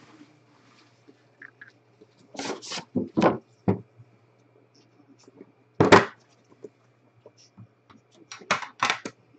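A cardboard Immaculate Baseball trading-card box being handled and opened by hand: a handful of short thuds and scrapes as the box is moved and its lid worked off, the loudest about six seconds in.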